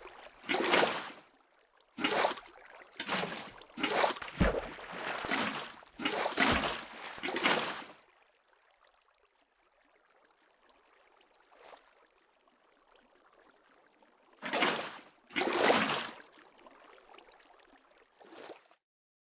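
Water splashing and gurgling in short bursts, about one a second for the first eight seconds. Then a lull of faint hiss, with two more bursts and a small one near the end.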